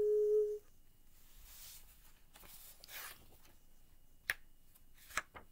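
A girl's held sung note ends about half a second in. Then there is soft rustling of paper as lyric pages are handled, with a few sharp clicks near the end.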